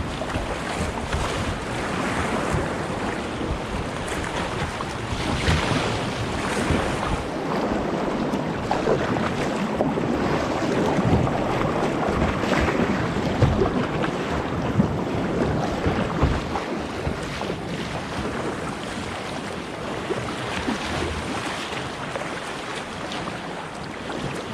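Sea water splashing and sloshing around a kayak, swelling and easing, with wind buffeting the microphone.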